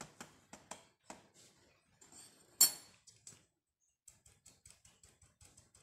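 Steel flour sieve being tapped and shaken over a glass bowl to sift flour and baking powder: light irregular taps, one sharper knock about two and a half seconds in, then a quick, even run of small ticks from about four seconds in.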